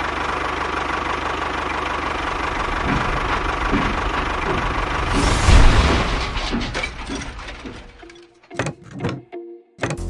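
A small engine running steadily with a rapid pulsing beat; it gets louder about five and a half seconds in, then dies away about eight seconds in. A few sharp knocks follow near the end.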